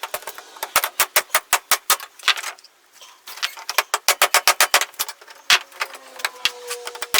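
Small metal tools clinking and clicking against each other in quick runs of several strikes a second, with a short lull about halfway.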